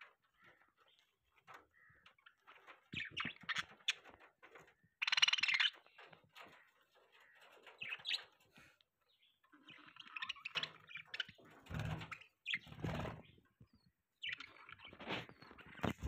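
Budgerigars chirping and chattering in short, scattered bursts, with a harsh, hissy squawk about five seconds in and a few dull thumps later on.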